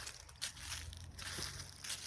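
Footsteps crunching on a forest trail, several steps at walking pace, over a low steady rumble.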